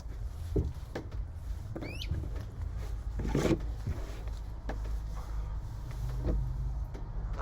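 WeiLong GTS speed cube being turned in the hands: scattered soft plastic clicks and rustles of its layers, over a steady low hum.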